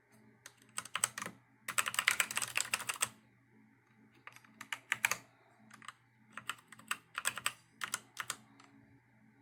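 Redragon Dark Avenger mechanical keyboard with Outemu brown switches being pressed: a few scattered key presses, a fast flurry of keystrokes about two seconds in, then irregular taps and short runs of keystrokes.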